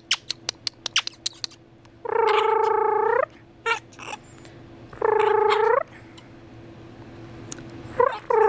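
A conure gives two drawn-out, even-pitched calls of about a second each, a few seconds apart, then short chirps near the end. A quick run of sharp clicks comes in the first second or so.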